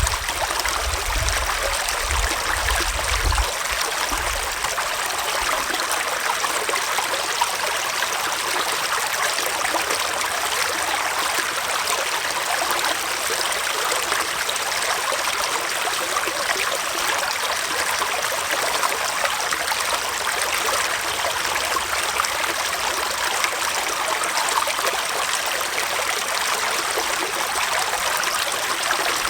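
Small forest stream flowing and trickling steadily, a constant even rush of water. A low rumble underneath fades out in the first few seconds.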